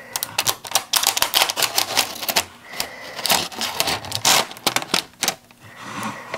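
Clear protective plastic film being peeled off the screen of a Feelworld FW759 camera monitor: a rapid crackling of clicks, coming in a few bursts as the film pulls free.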